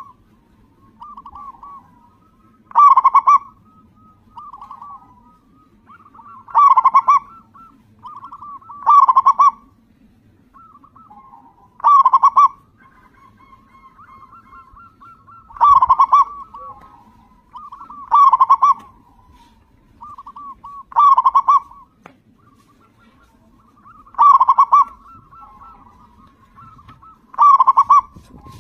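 Local zebra dove (perkutut lokal) calling vigorously: a loud cooing phrase about every three seconds, about ten in all, with softer cooing notes between them.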